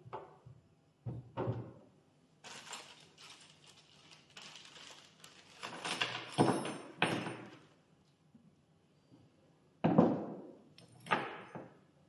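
A clear plastic bag of hardware crinkling as small metal parts are tipped out onto a padded table. Near the end come two sharp knocks, the first the loudest, as the metal flooring cutter is handled on the table.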